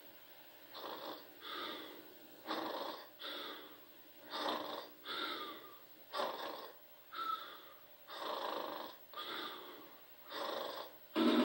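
A dog snoring in slow, paired in-and-out breaths, about one breath every two seconds, heard as a sound effect through a television speaker.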